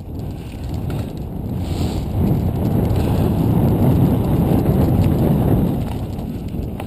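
Mountain bike ride noise: wind buffeting the on-board camera's microphone mixed with tyres rolling over a dry dirt trail. It is a low, rough noise that swells through the middle and eases off near the end.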